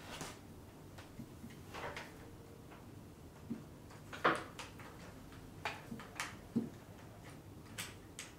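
Faint, scattered scrapes and light knocks as a wood-burning pen is drawn along the surface of an unfinished pine board, the loudest about four seconds in.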